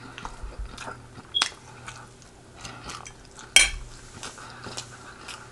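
Cutlery clinking and scraping against a dish of food during eating, with two sharp clinks, one about a second and a half in and a louder one about three and a half seconds in, among softer clicks.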